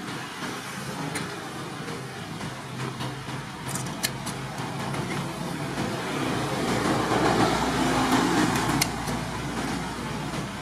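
Hand tin snips cutting thin sheet metal, with a few short sharp snips. Under them a steady rumble swells for a few seconds near the end and then fades; it is the loudest thing heard.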